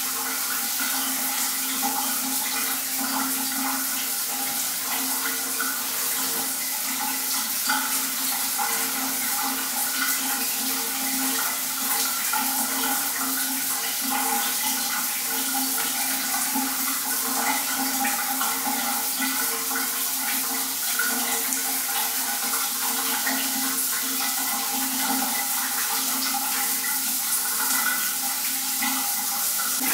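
Water running steadily, with a steady hum beneath it.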